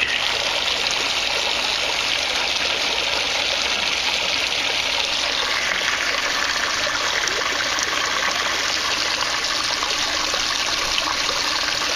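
A steady stream of water pouring from the lip of a plastic barrel and splashing into the surface of an aquaponics fish tank that is filling close to overflowing.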